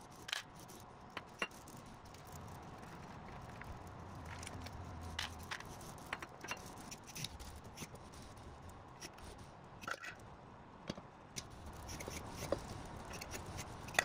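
Faint handling sounds from an ALOHA bimanual robot at work: scattered sharp clicks, clinks and short scrapes of its grippers against a scoop and a steel pot, over a low steady hum.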